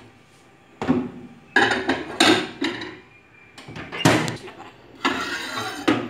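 Several sharp knocks and clunks, then a short scraping stretch near the end: a glass baking dish being handled and set down at an open microwave oven.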